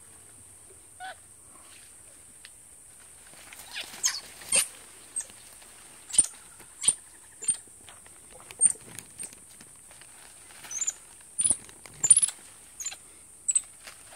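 White-faced capuchin monkeys giving a run of short, sharp, high-pitched squeaks, starting about four seconds in and coming every half second to a second.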